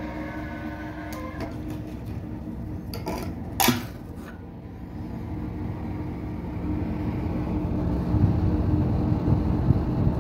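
Steady hum of a mechanical ventilation (VMC) extractor running, with one sharp click about three and a half seconds in. A low rumble grows louder over the last few seconds.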